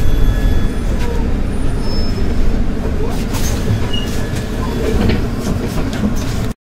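Solaris Urbino 12 IV city bus under way, heard from inside: a steady low rumble of engine and running gear, with light knocks and rattles. It cuts off suddenly near the end.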